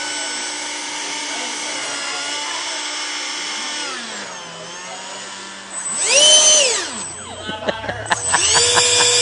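Electric ducted fan of a Nitroplanes F-18 RC jet whining as it is throttled on a stand. It runs steadily, spools down about 4 s in, then bursts up sharply to a loud high-pitched whine around 6 s and falls back within a second. After a few light clicks it spools up again near the end and holds.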